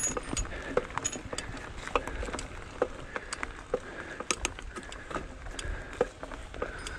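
Mountain bike ridden along a dirt trail strewn with leaves: tyres rolling over the ground with a low rumble, and the bike rattling and clicking irregularly over the bumps.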